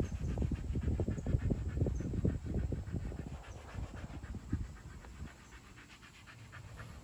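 Siberian husky panting hard with its tongue out, quick even breaths about five a second that fade out about five seconds in, over low rumbling thumps near the microphone.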